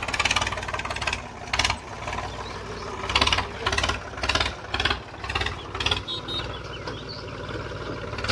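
Tractor's diesel engine running, with several short louder surges as it is worked.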